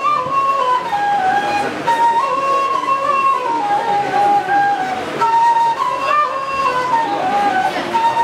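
A solo melody of long held notes that step up and down and slide between pitches, with no beat.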